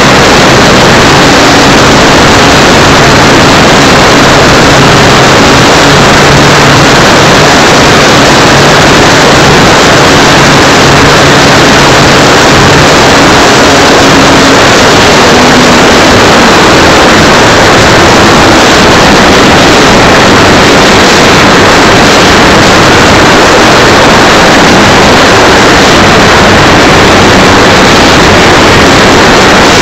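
Strong wind buffeting the microphone: a loud, continuous rumbling roar, with a faint low hum in the first half.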